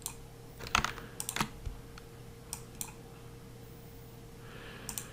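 Scattered clicks of computer keyboard keystrokes: a quick cluster about a second in and single clicks a little later, over a faint steady electrical hum.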